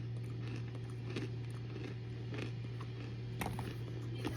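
Chewing hard, crunchy cornstarch: scattered soft crunches, the clearest a little past three seconds in, over a steady low hum.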